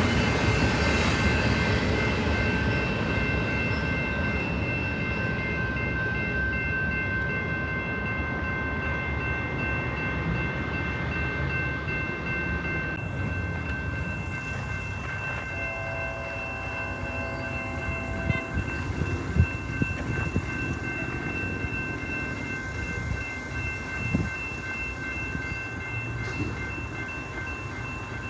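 A train rumbling past and slowly fading as it moves away, with a steady high-pitched ringing over the rumble. A faint short tone comes about halfway through, and a few light knocks follow later.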